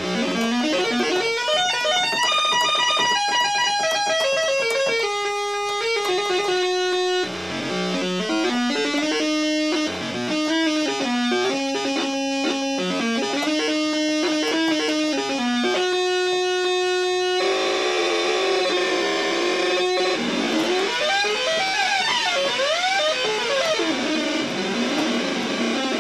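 Homemade 4-bit linear PCM synthesizer, played from a keyboard with its frequency doubler switched off. It plays a melody of buzzy, overtone-rich notes that step from pitch to pitch. In the second half the tone turns wavy, with overtones sweeping up and down.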